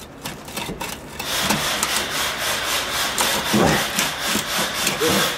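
A hand tool scraping back and forth against the metal of a pickup truck's front suspension parts. The scraping comes in repeated uneven strokes, starting about a second in.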